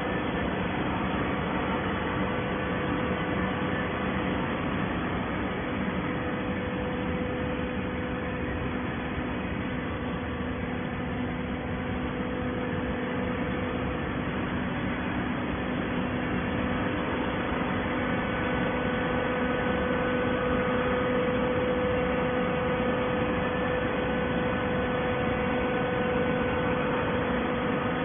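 Industrial carton baler running: a steady hum from its motor and hydraulic pump, with several held tones over a noisy bed.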